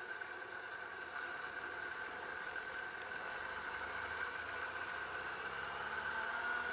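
Yamaha R6's inline-four engine running steadily at low revs as the motorcycle rolls away, growing slightly louder toward the end.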